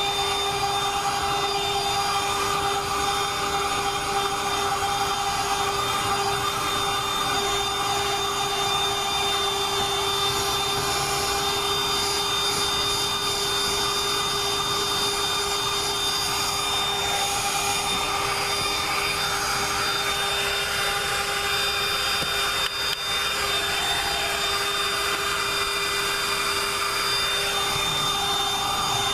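Dirt Devil Quick Flip Pro cordless hand vacuum running steadily: an electric motor whine over rushing suction air, as its crevice nozzle is worked over car floor carpet.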